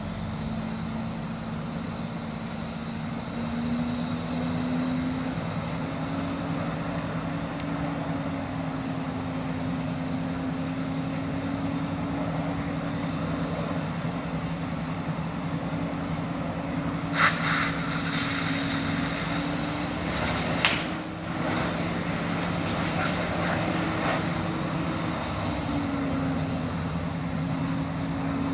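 Fire apparatus diesel engine running at raised revs to drive its pump: a steady drone with a fainter high whine, both drifting slowly up and down in pitch. Two sharp pops a few seconds apart past the middle.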